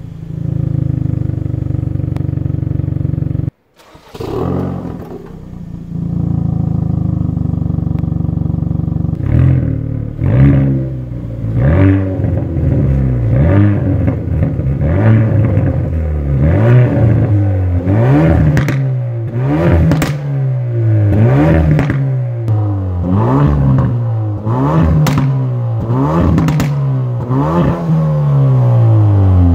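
2019 Hyundai i30 N Fastback's 2.0-litre turbocharged four-cylinder through its stock exhaust. It idles steadily at first, with a brief break in the sound about three and a half seconds in. From about nine seconds it is blipped repeatedly, the pitch rising and falling about once a second, with sharp crackles among the revs.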